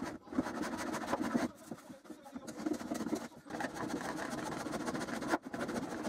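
A hand plane being pushed along the edges of reclaimed softwood floorboard cladding, several long rasping strokes of about a second each with short pauses between them.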